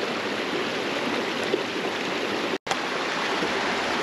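Creek water running steadily; the sound drops out completely for an instant about two and a half seconds in.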